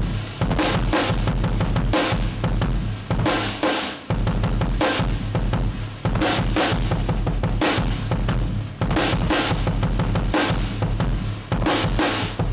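Acoustic drum kit played unprocessed in a steady groove, with a Mapex Black Panther Blackbird snare: bass drum, snare strokes and cymbals, with a couple of brief breaks between phrases.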